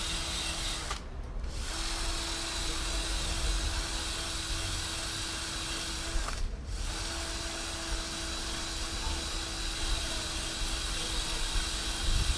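A freshly reassembled Torpedo Duomatic two-speed rear hub, turned by hand, its internals whirring and clicking against a steady low hum.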